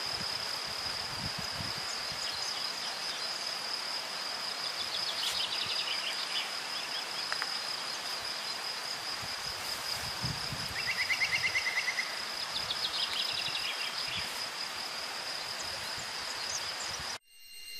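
Outdoor ambience: a steady high-pitched insect drone over a hiss, with short bird trills now and then and a quick run of chirps about eleven seconds in. The sound cuts off suddenly near the end.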